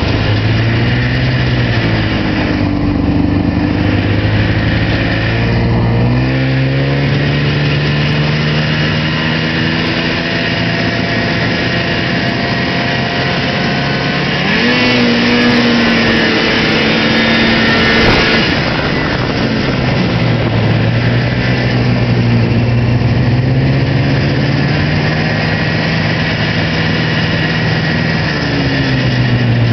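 An old Arctic Cat Pantera snowmobile's two-stroke engine running under way. Its pitch climbs about six seconds in and again sharply around halfway, then falls back a few seconds later and settles. A loud rushing noise runs under it, heaviest around the middle.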